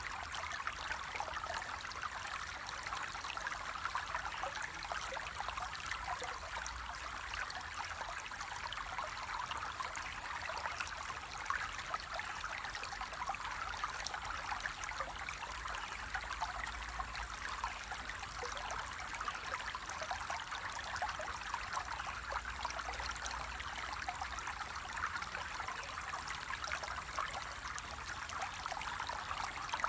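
Flowing water babbling and splashing steadily, with a dense, even patter of small splashes and no change throughout.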